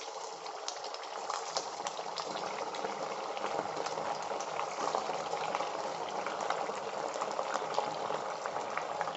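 Hot oil sizzling and bubbling as semolina (rava) nuggets deep-fry in a wok, with dense fine crackling. It grows a little louder as more nuggets go into the oil.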